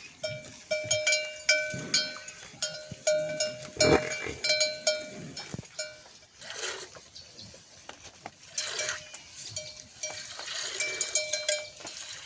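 A metal livestock bell clanking in uneven clusters of strikes as the animal moves, each strike ringing at the same pitch. The clanking thins out for a few seconds in the middle, then picks up again.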